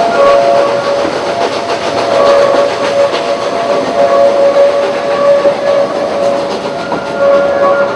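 Narrow-gauge train rolling through a tight curve, its wheel flanges squealing against the rails: a squeal of several held tones that drops out and returns, over the steady rumble and clatter of the cars.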